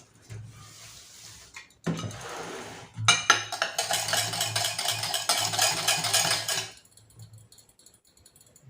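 A spoon stirring and scraping in a pot, with quick clinks of utensil on pot. It is faint at first, loud for about four seconds from about three seconds in, then stops.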